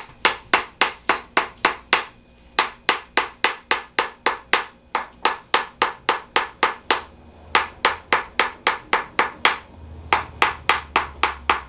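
Tok sen massage: a wooden mallet tapping a wooden wedge held against the body, in quick, even strikes of about four a second. The strikes come in runs with brief pauses between them.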